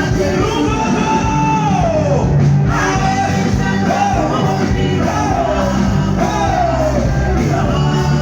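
Amplified live band music with a singer's voice over it; several sung phrases slide down in pitch at their ends.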